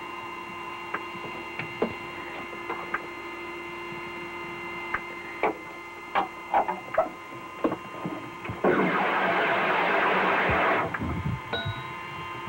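Steady electrical hum with several steady tones underneath, scattered short clicks and knocks, and a loud rushing hiss starting about nine seconds in and lasting about two seconds.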